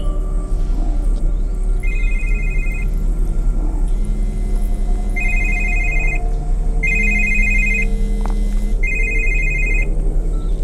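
Mobile phone ringing with a trilling electronic ring, in four short bursts a second or two apart, over a low steady drone.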